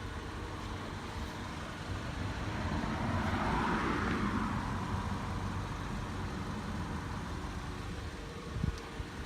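Road traffic: a steady low vehicle rumble, with a vehicle passing that swells to its loudest about four seconds in and then fades. A brief low bump near the end.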